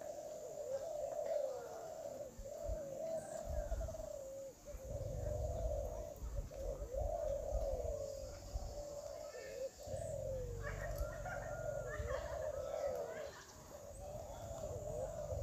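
A chorus of many caged Klantan-type spotted doves (derkuku) cooing at once, their calls overlapping without a break.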